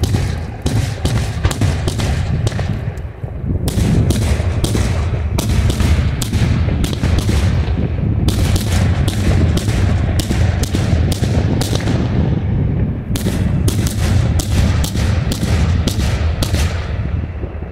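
Daytime fireworks display: aerial shells bursting high in rapid succession, several sharp bangs a second over a continuous low rumble, with brief lulls about three and twelve seconds in.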